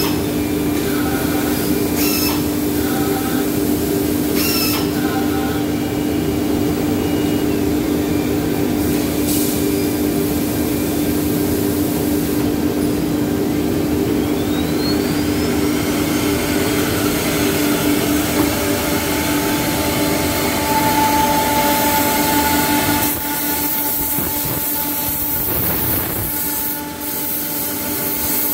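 Holztek PRO-R4F four-head CNC nesting machine running: a steady mechanical hum with a low drone. A rising whine comes in about halfway through, and a higher steady tone joins about two-thirds of the way in.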